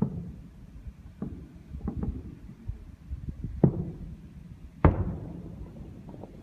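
Fireworks shells bursting overhead: a series of about six booms a second or so apart, the loudest two coming in the second half, each trailing off in an echo.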